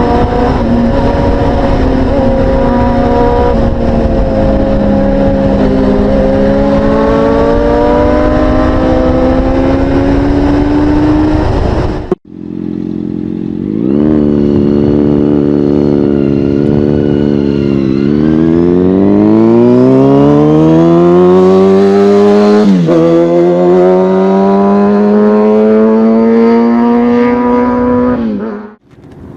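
Kawasaki Ninja ZX-6R 636's inline-four engine with an M4 aftermarket exhaust, accelerating hard: the engine note climbs steadily, drops back at upshifts and climbs again. The sound breaks off abruptly about twelve seconds in and picks up again with a fresh run up through the gears.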